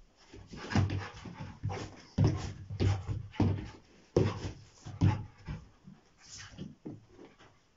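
Rottweilers at play: a string of short, irregular dog panting huffs and scuffles, fading near the end.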